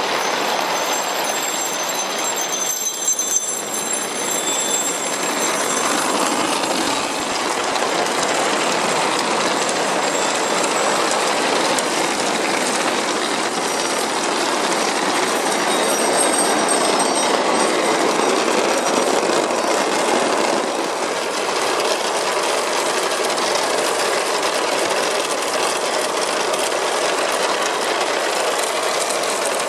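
Thousands of 15–17 mm glass marbles rolling en masse across a wooden marble run, clicking against each other and against the board's wooden obstacles and rails: a dense, steady rattling clatter.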